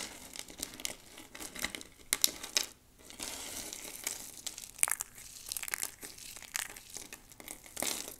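Dry soap being crushed and crumbled in the hands: a steady crackling crunch broken by sharper cracks, with a short lull about three seconds in.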